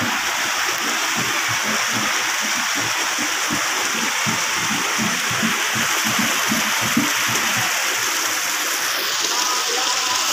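Steady rush of running water, with irregular low thumps underneath. A faint melody starts near the end.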